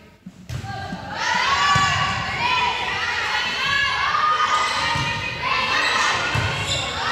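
High-pitched shouting and cheering from girls' volleyball players and spectators, loud from about a second in. A volleyball thuds off players' hands and arms several times during the rally.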